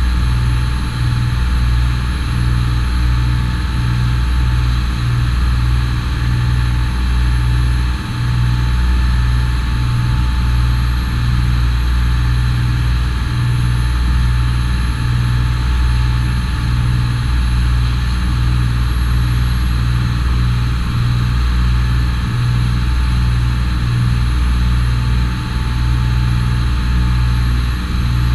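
Boat engine running steadily: a loud, continuous low drone with a faint pulsing throb.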